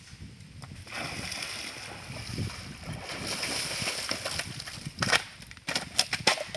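Water sloshing and splashing, then a quick series of sharp knocks near the end.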